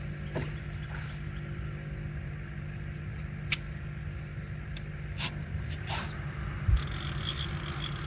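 Steady chirring of night insects, over a low steady hum, with a few sharp clicks and one dull thump near the end.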